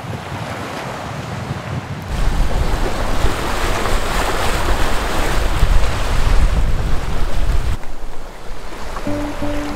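Water rushing and splashing along a Sabre 36 sailboat's hull as it sails through choppy water, with wind buffeting the microphone. The sound gets much louder about two seconds in and eases off near the end.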